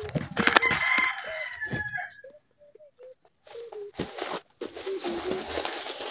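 A rooster crows once in the first two seconds, and short low clucking calls follow. From about four seconds in, grass and leaves rustle under someone's steps.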